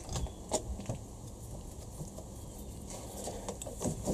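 A few light metallic clicks and taps as an alternator adjuster bracket and its bolts are offered up by hand to the engine, one about half a second in and several more near the end.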